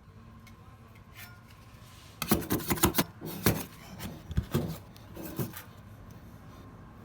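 Hand work on a plastic water tank: a run of scraping and rubbing with sharp knocks, starting about two seconds in and stopping a little before the end.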